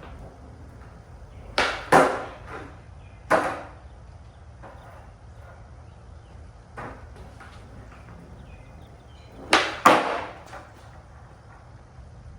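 Skateboard being popped and landed on hard ground: sharp wooden clacks, a pair about two seconds in, a single one soon after, and another pair near the end.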